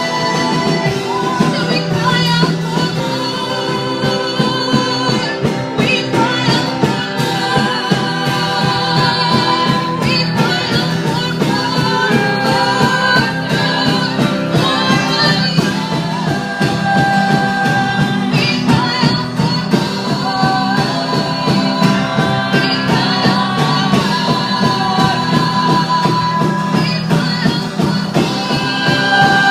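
Music with singing voices over a steady band, running continuously.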